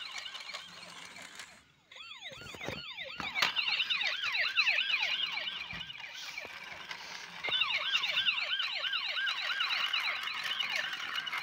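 Battery-powered toy police car's electronic siren, a fast yelp of rising-and-falling chirps about three or four a second. It drops out briefly just before two seconds in, then comes back and runs on.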